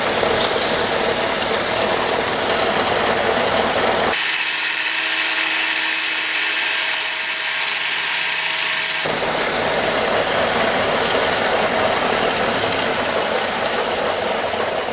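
A power tool runs steadily, rounding over and smoothing a casting-pattern piece. Its sound thins out, losing its low end, from about four to nine seconds in, then returns to its fuller sound.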